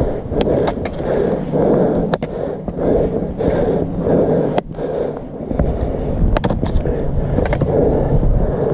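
Footsteps crunching over rocks and dry leaves, about two steps a second, with the sharp clicks of trekking-pole tips striking rock. A low rumble joins about halfway through.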